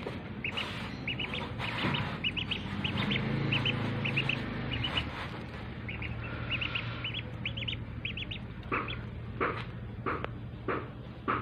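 Two domestic ducklings peeping in quick runs of short high calls while they eat grain from a bowl. The peeping stops about eight seconds in, and a few sharp taps follow near the end.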